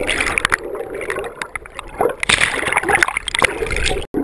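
Whitewater churning and gurgling around a camera at the waterline, with irregular splashes and bubbling. The sound cuts out for an instant near the end.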